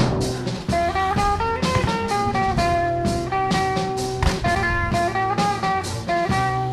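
Background music: a guitar-led track with bass and drums.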